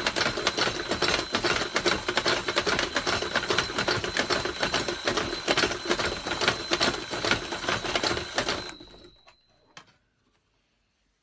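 Alarm clock bell ringing: a fast, continuous run of strikes with a steady high ring, which stops about nine seconds in, followed by a single click.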